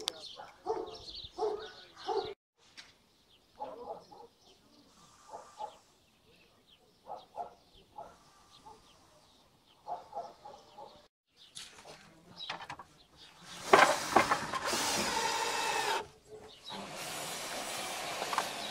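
Power tool running loudly for about two seconds, stopping, then running steadily again after a short break. Before it come scattered brief calls and clicks.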